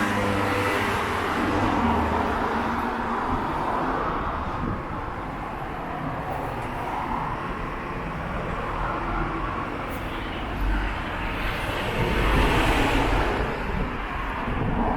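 Street traffic noise: a steady rumble of passing road vehicles, swelling as one goes by near the end.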